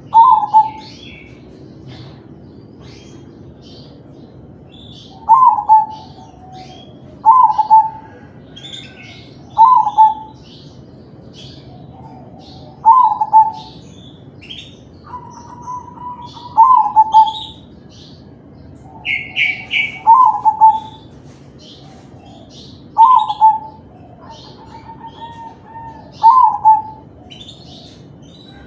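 Crossbred zebra dove (perkutut) singing its cooing song: nine short loud phrases, one every two to four seconds, with faint chirps of small birds behind.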